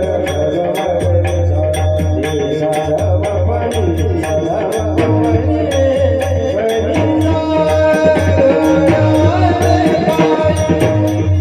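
Live Marathi kirtan music: voices singing a devotional tune over a fast, even beat of sharp metallic clicks, with a steady low drone underneath.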